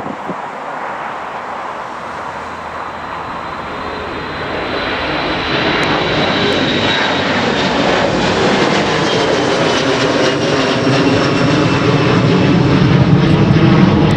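Airliner's engines growing steadily louder as the aircraft approaches, with a high whine that drifts slightly lower in pitch.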